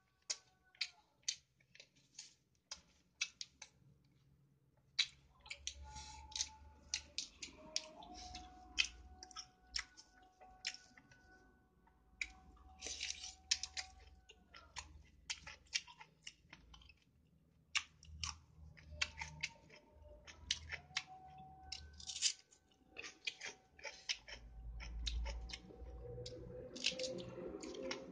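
Close-up mouth sounds of eating rice and chicken by hand: a long run of wet chewing and lip-smacking clicks, coming in clusters with short pauses between mouthfuls.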